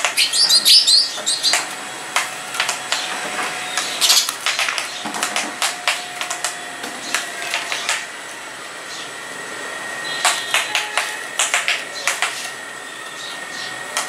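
House sparrows chirping in short high notes, with many sharp pecking taps as they scuffle in front of a mirror.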